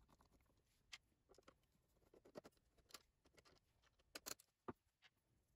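Near silence broken by a handful of faint, scattered clicks and light scrapes of a screwdriver and small screws being worked out of the iMac G4's metal drive-bay shield.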